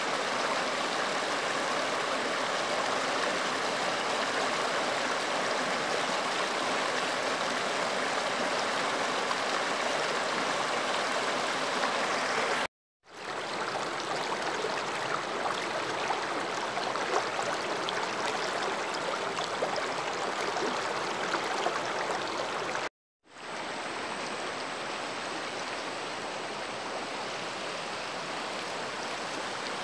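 Shallow river water rushing steadily over and around boulders, broken twice by a brief dropout to silence.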